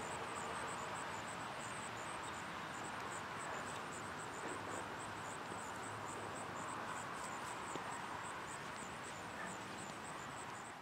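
Outdoor ambience: a steady background hiss with insects chirping high and fast, about four or five chirps a second.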